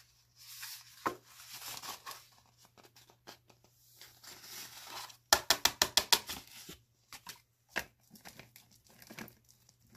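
Crinkling and tearing handling sounds: soft rustling at first, then a quick run of about ten sharp crackles about five seconds in, followed by scattered clicks.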